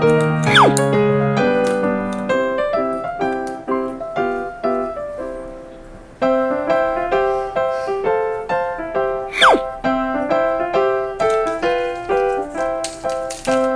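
Background piano music, with a sharp falling whistle-like glide near the start and again about two thirds of the way through; the music fades briefly in the middle and then starts up again.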